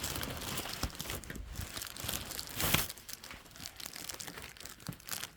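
Rustling and crinkling with small scattered clicks, and one louder rustle about two and a half seconds in.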